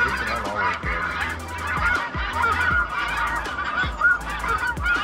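Many geese honking at once, a dense overlapping chorus of short calls that does not let up.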